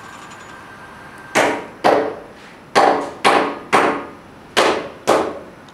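Seven sharp, ringing knocks, each dying away over about half a second, coming about half a second apart in groups of two, three and two.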